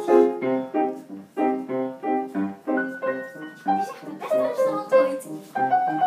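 Piano music: a bouncy tune of quick, evenly spaced notes and chords. A voice joins in faintly near the end.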